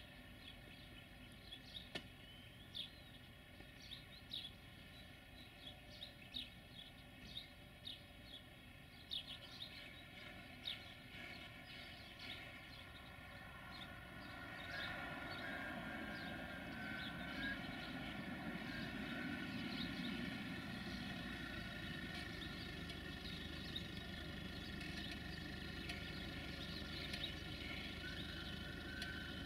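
Birds chirping over a faint steady hum. About halfway through, the steady rumble of an approaching 060-DA (LDE2100) Sulzer diesel-electric freight locomotive comes up and holds.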